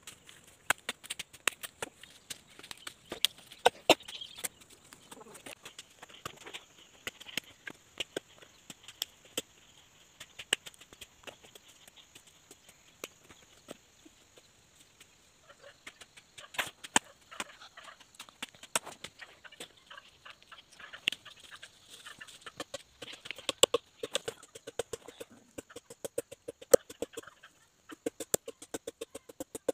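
A machete chopping green, freshly cut neem branches: irregular sharp knocks, then a fast run of strokes in the last few seconds.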